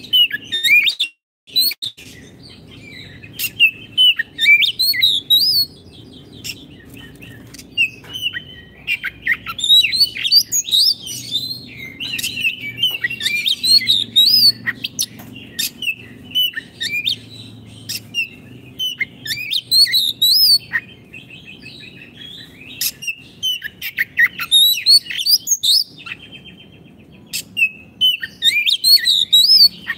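Oriental magpie-robin (kacer) in full song: a loud, varied stream of rapid whistles, trills and chattering phrases delivered in bursts with short pauses between them. A faint low hum sits underneath.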